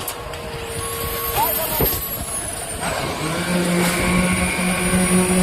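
Heavy diesel machinery running at a concrete pour, with a steady low engine hum coming in about three seconds in and high whining glides over a mechanical din.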